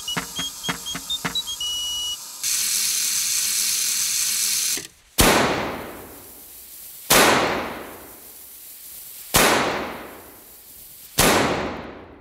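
Clockwork of a 16th-century gilded table ship automaton clicking along with short piped tones, then a steady hiss of about two seconds. Its small cannons then fire four sharp shots about two seconds apart, each ringing out in a long decay.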